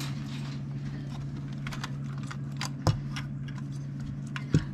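Plastic Lego pieces clicking and rattling as they are handled and fitted together, with two louder knocks, one past the middle and one near the end, over a steady low hum.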